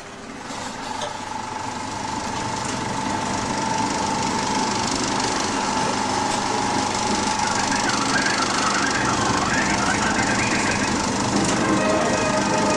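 Vintage 1920s cinema film projector, converted for sound, starting up and running, its mechanism clattering steadily with a steady high hum. It grows louder over the first few seconds as it comes up to speed.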